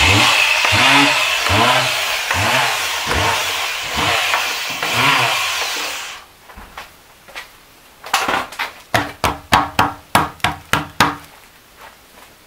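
Electric orbital sander running while held against a freshly cast pumice-concrete dome to vibrate and settle the concrete, its note pulsing as it is pushed and moved, then cutting off about six seconds in. About two seconds later comes a rapid run of a dozen or so sharp knocks.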